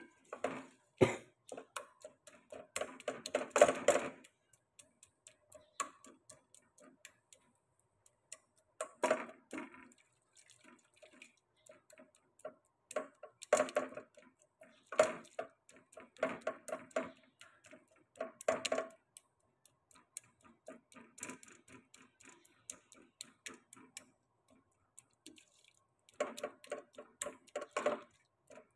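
A plastic spatula stirring and scraping thick frying masala in an aluminium pressure-cooker pot, in short bouts of rapid clicking, scraping strokes with pauses between them.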